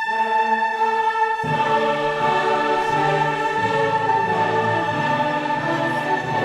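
Orchestral music with a choir: a high note held steadily while lower parts come in about a second and a half in.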